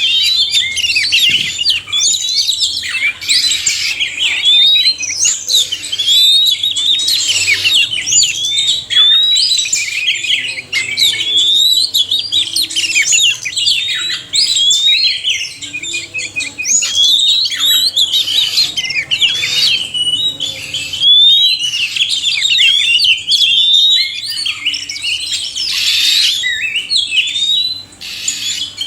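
Oriental magpie-robins (kacer), males and females, singing together in a dense chorus of quick whistled phrases, chirps and rising and falling notes that overlap without a break.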